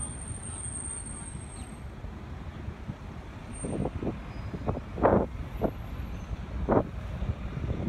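Outdoor ambience: a steady low rumble, with a few short louder bursts from about halfway through to near the end.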